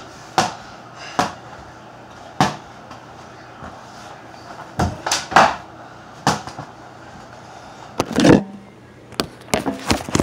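A red rubber ball being dribbled and bouncing on the floor: single knocks at uneven intervals, some in quick pairs. Near the end, a quicker run of small knocks and rubbing as the phone is picked up and handled.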